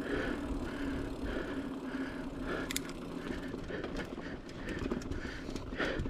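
A mountain biker breathing hard and fast, about two breaths a second, over the rumble of tyres rolling on a dirt trail. A sharp rattle from the bike comes about two and a half seconds in and again near the end.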